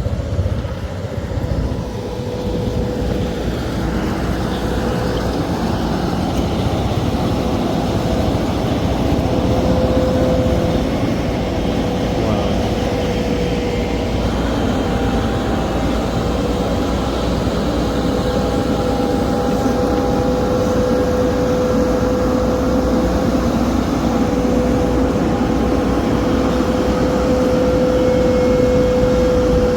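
An engine running steadily, with a steady whining tone over a low rumble that holds unchanged throughout.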